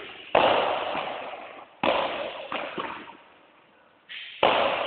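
Padel ball being hit hard with a racket and rebounding off the court: three loud hits, each followed by a long echo in the hall, with a couple of lighter knocks between them.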